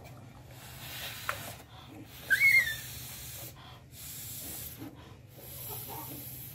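Baby macaque giving one short, high squeak that rises and falls, about two and a half seconds in, over stretches of soft hissing noise.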